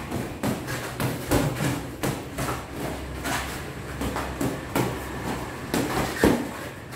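Boxing gloves punching focus mitts in a steady run of combinations: sharp smacks roughly two a second at uneven spacing, with the hardest hits about a second and a half in and near the end.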